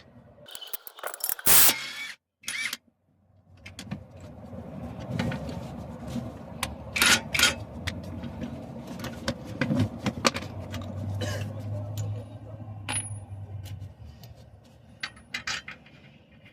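Metal hand tools and sockets clinking, knocking and scraping against each other and the hub and brake parts: a run of irregular sharp clinks, the loudest knock about one and a half seconds in.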